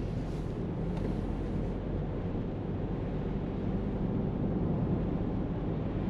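Steady driving noise inside a moving car's cabin: low rumble of engine and tyres on the road. A fainter hiss on top drops away about two seconds in.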